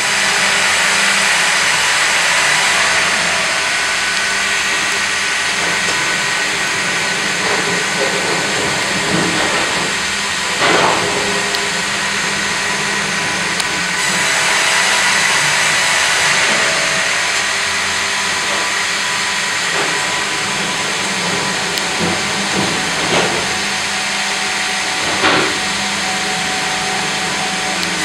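Fimaksan FI.120/HDG hydraulic vertical band saw sawing a log on its automatic log carriage: a steady machine din with a hiss, growing louder twice, with a few short knocks.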